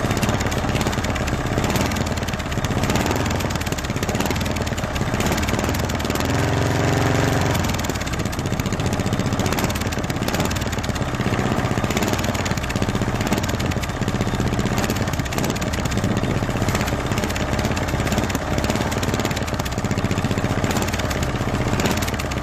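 Ride-on lawn mower's engine running steadily, its exhaust capped with a flap made from a tin can; the engine swells deeper and stronger for a couple of seconds about six seconds in.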